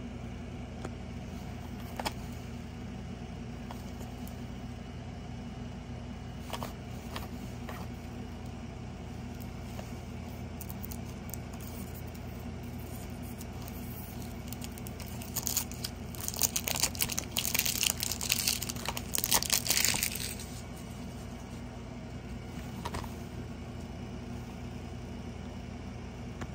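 A plastic cassette case being handled, with a few light clicks, then about five seconds of loud crinkling from its plastic wrapping over a steady low hum.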